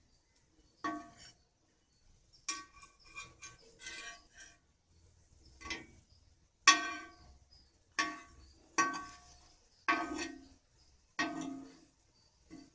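Steel spatula clinking and scraping against a metal tava among the cooking dal vadas: about a dozen sharp ringing clinks, a quick cluster a few seconds in, then roughly one a second.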